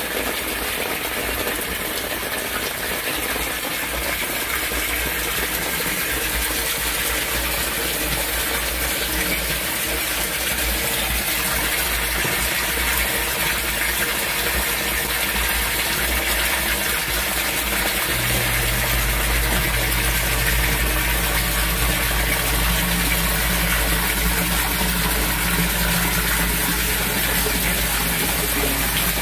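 Torrential rain and water rushing through an outdoor drainage system. About two-thirds of the way in, a steady low hum joins the water noise.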